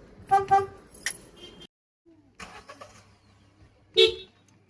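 Car horn giving a quick double toot about half a second in. After a brief cut there is one short, louder toot near the end.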